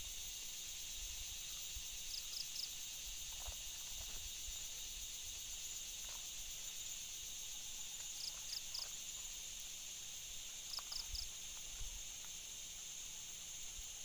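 Steady high insect chorus. Three times a short burst of three quick high chirps stands out, about two, eight and eleven seconds in, over a few faint low thumps.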